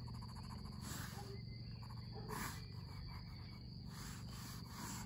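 Graphite pencil scratching across drawing paper in short strokes as lines are drawn, over a steady low hum.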